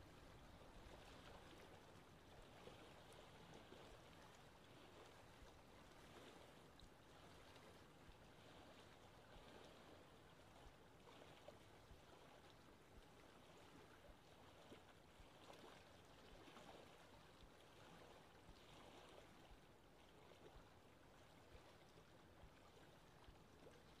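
Faint, steady rushing of a waterfall and its stream.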